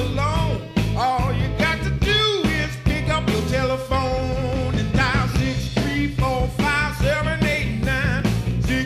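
Blues-rock band recording: a lead of sliding, bending notes over bass and a steady drum beat.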